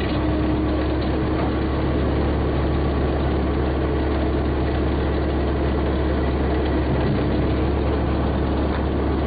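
Tractor engine idling steadily, an even low hum with no change in speed.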